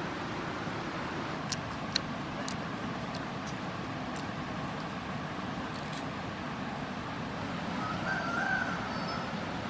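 Ripe jackfruit being pulled apart by hand, with a few sharp sticky clicks and snaps as the pods are torn from the fibrous core. These sit over a steady outdoor rumble and hiss. A short pitched chirp comes near the end.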